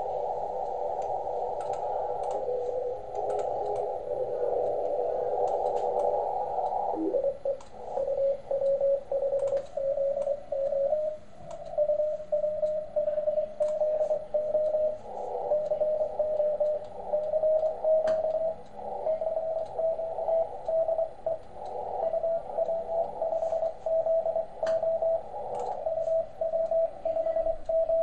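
Shortwave radio receiver audio on the 30 m CW band from a Softrock Ensemble II software-defined radio: band hiss through the narrow CW filter, then a short tuning sweep about seven seconds in. After that, a Morse code signal comes in as a single keyed tone that beeps on and off in dots and dashes, creeping slightly up in pitch, over the receiver hiss.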